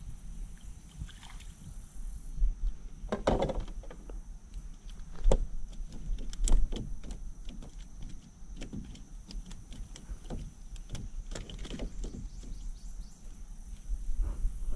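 Scattered knocks, taps and bumps against a canoe's hull and floor as an angler moves about and handles a small caught fish, with louder bumps about three, five and six and a half seconds in.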